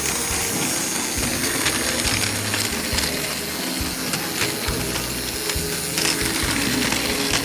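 Plarail toy locomotive's battery motor and gearbox running, with fast continuous clicking from the gears and side rods. The bent rods have just been straightened, and it now runs much better.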